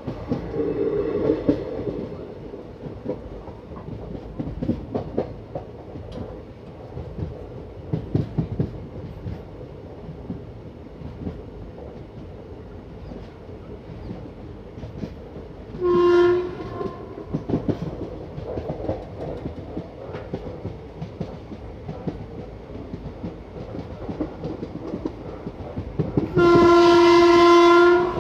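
Indian Railways passenger train running on the track, with steady rumble and rail-joint clickety-clack. The train's horn sounds twice: a short blast about halfway through and a longer, louder blast near the end.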